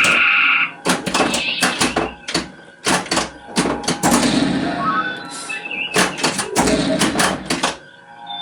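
Bally Star Trek pinball machine in play: a fast, irregular run of sharp knocks and clacks from the ball, bumpers, targets and flippers, mixed with electronic beeps and effects from the game's added speaker.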